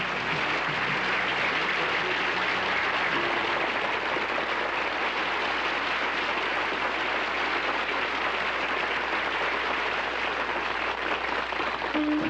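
Audience applause, steady and sustained without a break.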